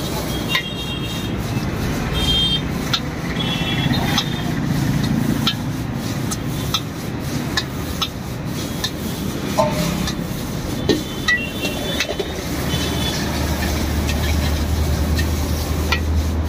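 Steel ladle clanking and scraping against an iron wok while noodles are stir-fried: irregular metal knocks, some of them ringing briefly, over steady background noise. A low hum joins in for the last few seconds.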